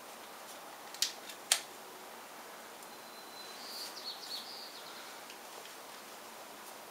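Two sharp clicks half a second apart, about a second in, as a USB plug is pushed into the battery pack powering a small LED strip. A faint high warbling chirp follows a little past the middle, over a steady hiss.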